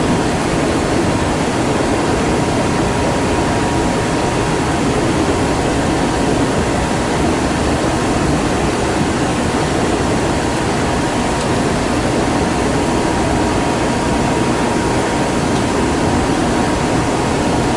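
Steady running noise inside a Kintetsu 'Raku' train carriage at speed: an even rumble and hiss of wheels on rail, with a faint steady whine.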